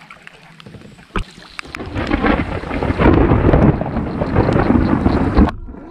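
A long roll of thunder that builds about two seconds in and rumbles heavily for several seconds, then cuts off suddenly near the end. A single sharp knock comes about a second in.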